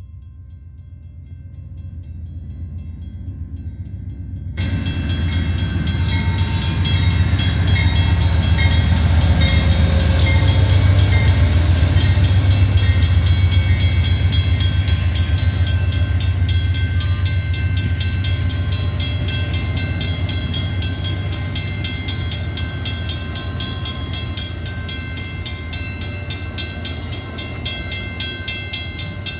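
Amtrak Texas Eagle's Superliner bilevel passenger cars rolling past a level crossing: a steady low rumble that builds over the first ten seconds or so and then holds. The crossing's warning bell rings rapidly throughout, and near the end the wheels click in a regular rhythm over the rail joints.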